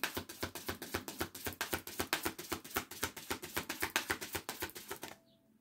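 A deck of oracle cards being shuffled by hand: a rapid, even run of light card clicks, about eight to ten a second, that stops shortly before the end.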